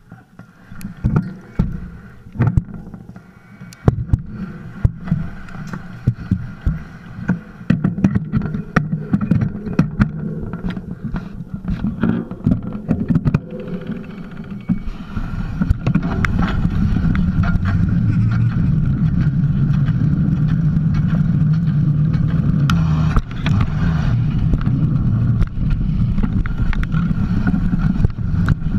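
Mountain bike ride heard from a camera mounted on the bike: irregular knocks and rattles of the bike over rough ground, then from about halfway a steady, louder low rumble of wind and tyre noise as the bike speeds up.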